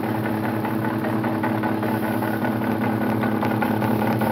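Vintage Sun distributor test stand running steadily, its motor spinning a Volkswagen 205K distributor at 1,000 rpm, with a steady hum.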